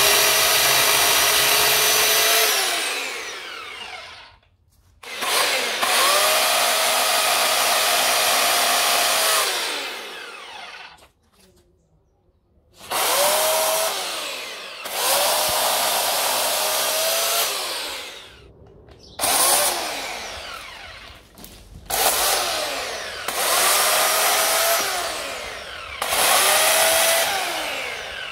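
Parkside 1400W corded electric chainsaw run in repeated bursts, about eight times, cutting tree branches. Each time the motor and chain whine up to speed at once, run steadily, then wind down with a falling whine as the trigger is released.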